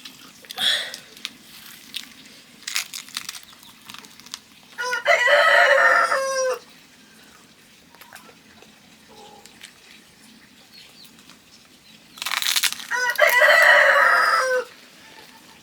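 A rooster crowing twice, each crow a long drawn-out call that drops in pitch at the end, about five and twelve seconds in.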